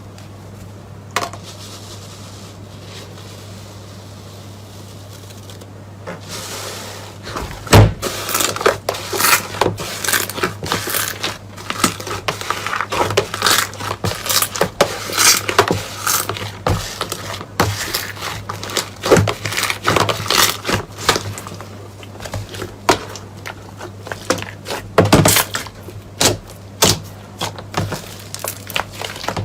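Dense crisp crunching and crackling, as of a brittle material being pressed and crushed by hand, starting about six seconds in after a quiet stretch, over a steady low hum.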